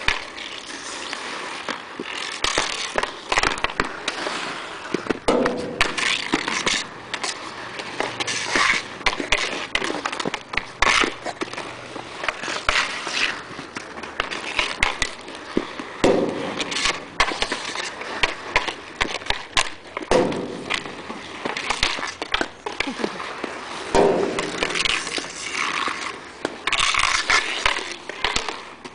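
Inline skate wheels rolling and scraping on asphalt, with many sharp clacks and knocks of hockey sticks striking the ball and the ground.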